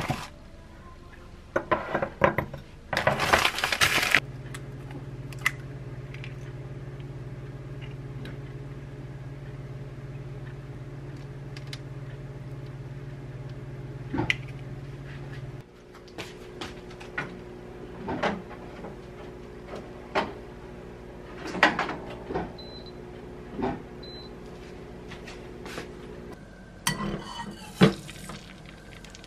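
Frozen avocado and a glass cup clattering on the counter. Then a microwave oven hums steadily for about eleven seconds, defrosting, and cuts off suddenly. After that come scattered clinks and taps of dishes and two short high beeps.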